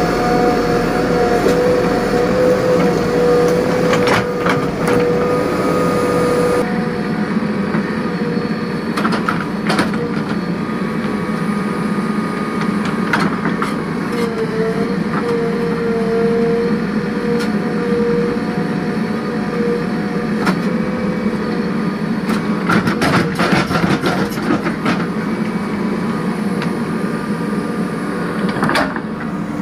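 JCB 3DX backhoe loader's diesel engine running steadily under load with a high whine over it, as the backhoe bucket digs a trench in soil. Scattered knocks and scrapes, several in quick succession at times, from the bucket against earth and stones.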